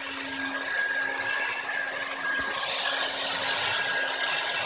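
Automatic hot-air floor welding machine running as it welds a linoleum seam: the hot-air blower's steady hiss over a steady hum and a faint high whistle. The hiss grows brighter about two and a half seconds in.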